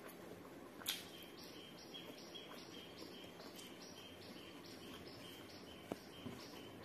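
Quiet eating by hand: a sharp mouth click about a second in and another near the end, over a faint, high chirping that repeats evenly about two and a half times a second from about a second in.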